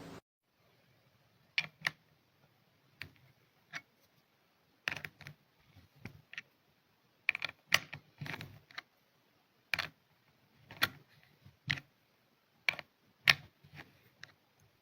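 Irregular, sparse clicks and knocks, like small hard objects being handled, on an otherwise near-silent background.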